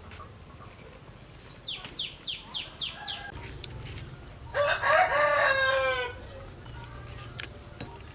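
A rooster crowing once, a long call of about a second and a half that falls in pitch at the end. A run of about six short, high calls comes just before it.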